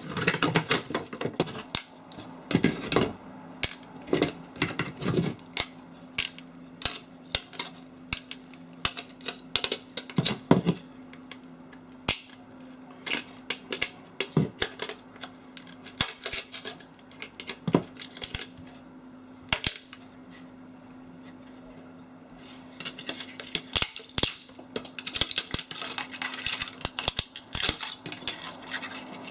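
Irregular metallic clinks, clicks and clatter of small metal parts being handled, as when a microwave oven is taken apart by hand for scrap, over a faint steady hum.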